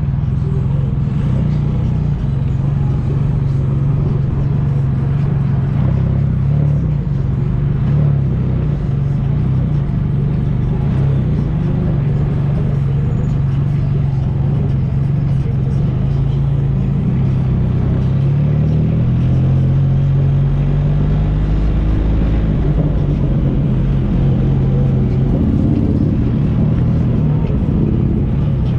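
A motor vehicle engine running steadily with a low drone; its pitch drops and shifts about two-thirds of the way through, and starts to climb near the end.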